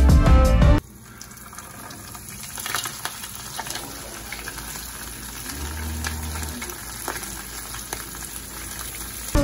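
Hot oil in a frying pan sizzling as a whole moi fries in it, a steady sizzle with scattered crackles and pops. Background music cuts off about a second in.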